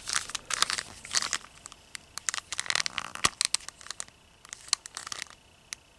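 Handling noise: scratchy rustling and many small clicks as hands turn and bend the legs of a 1/6 scale action figure with faux-fur boots. The clicks thin out about five seconds in.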